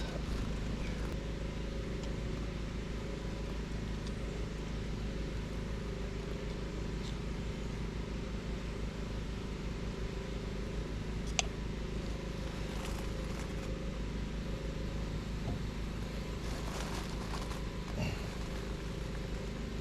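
An engine running steadily at idle, with one sharp click about eleven seconds in and a softer knock near the end.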